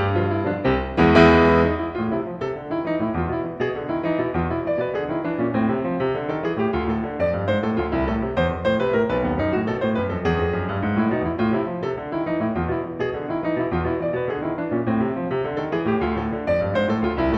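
Solo piano music, quick notes throughout, with a loud chord about a second in.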